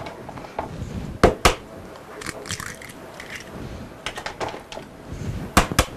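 Eggs being cracked on the rim of a mixing bowl: two pairs of sharp taps, about a second in and again near the end, with light handling clinks between.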